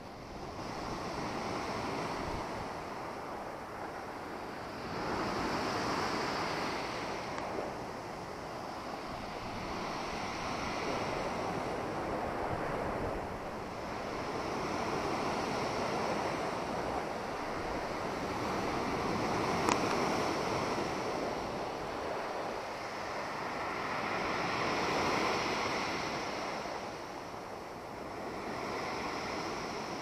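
Black Sea surf breaking and washing on the shore, swelling and fading every four to five seconds.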